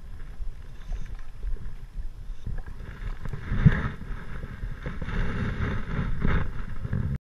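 A hooked fish splashing at the pond surface against a light fly line, over a rumble of wind and handling noise on the GoPro's microphone. The splashing gets louder about halfway through, with one sharp splash just after.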